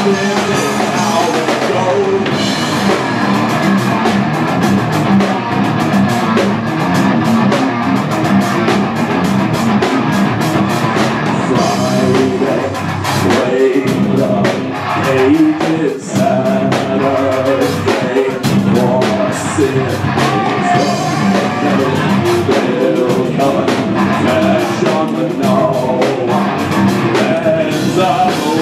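Rock band playing live, with drums, electric guitar and a man singing into a microphone, loud and continuous, with a short drop in the middle.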